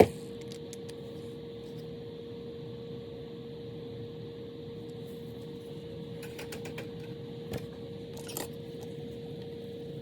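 Scattered light clicks and taps of small parts being handled at a workbench over a steady hum. There is a sharp click at the start and a few more clicks between about six and eight and a half seconds in.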